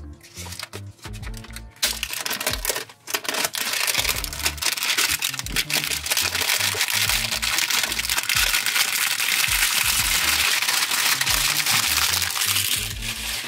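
Clear plastic shrink-wrap being peeled off a cardboard box and crumpled in the hand, a loud, continuous crackling that starts about two seconds in and stops just before the end.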